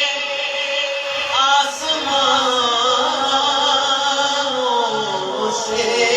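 A male voice singing a naat, a long held line that bends in pitch without clear words, over steady held tones.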